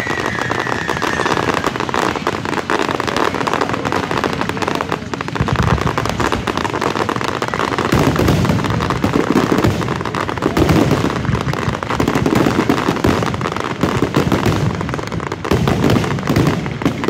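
Aerial fireworks bursting in rapid succession: dense crackling, with a falling whistle fading out in the first second. Heavier booms come in about five seconds in and keep on to the end.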